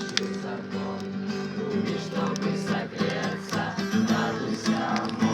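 Acoustic guitar being strummed, playing a song's chords.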